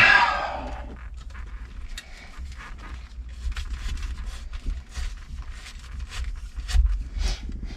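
Irregular small clicks, taps and scrapes of hand work on the steering column as the turn signal switch is fitted and screwed in, over a low rumble.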